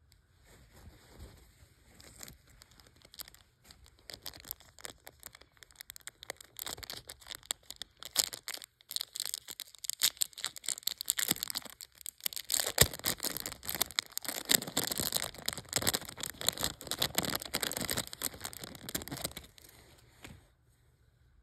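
Small clear plastic bag crinkling and crackling as fingers work it open, getting louder halfway through and stopping shortly before the end.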